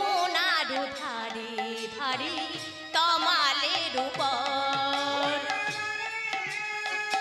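Bengali kirtan music: khol drums beat a steady rhythm about twice a second under a keyboard. A high, heavily ornamented melody line wavers over it in the first half, and then gives way to held keyboard notes.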